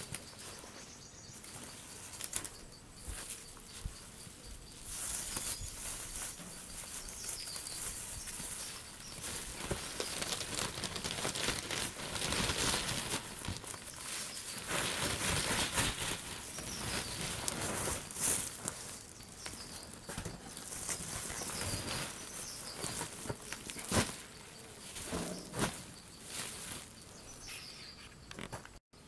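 Leaves and stalks rustling as plants are handled or pushed through, with sharp snaps here and there, the loudest about 24 seconds in. Faint bird chirps sound now and then in the background.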